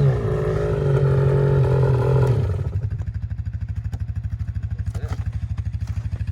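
Ski-Doo Renegade X-RS 850 two-stroke twin, fitted with an MBRP Race exhaust, held at raised revs. About two and a half seconds in it drops back to a loping, pulsing idle.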